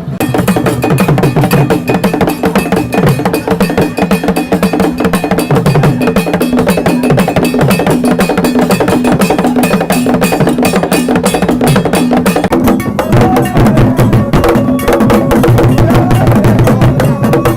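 Loud music driven by dense, fast percussion: many rapid drum and bell- or block-like strikes over steady held notes, starting abruptly.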